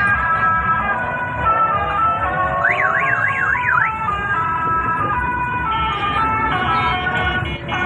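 A telolet horn playing a tune of held, changing notes. About three seconds in, a fast up-and-down siren warble sweeps four times.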